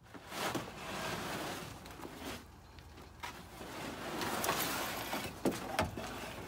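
Stiff old car trunk mat scraping and rustling as it is dragged out of the trunk, with a couple of sharp knocks near the end.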